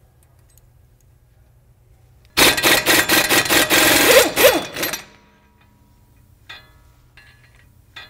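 Impact wrench hammering off a front axle nut in a burst of about two and a half seconds, starting a little over two seconds in. A few light metallic clinks follow near the end as the loosened parts are handled.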